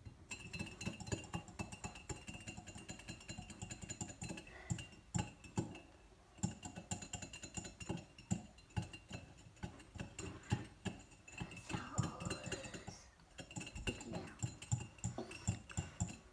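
Small metal wire whisk beating dish soap and salt in a ceramic mug: rapid clinking of the wires against the mug, which rings faintly, broken by two short pauses.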